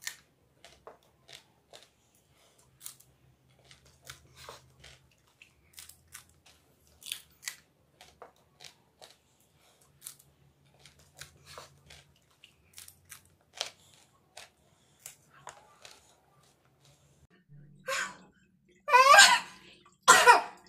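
Raw green chillies being bitten and chewed, a run of short crisp crunches at irregular intervals. Near the end come a few much louder strained vocal sounds.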